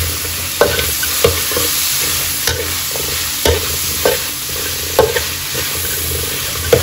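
Chicken pieces sizzling in a steel wok as they are stir-fried, a metal spatula scraping and clanking against the wok every second or so.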